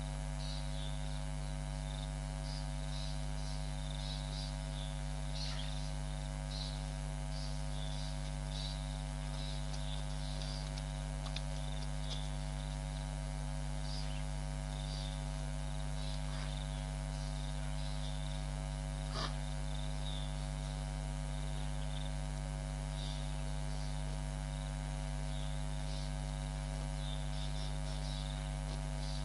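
Steady electrical mains hum with a ladder of buzzing overtones, over faint, scattered high chirps from small creatures at dusk. There is one soft click about two-thirds of the way through.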